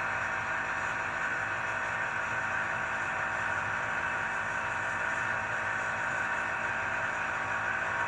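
Electric air compressor of an onboard air horn system running steadily, refilling the air tank with the vehicle's engine off.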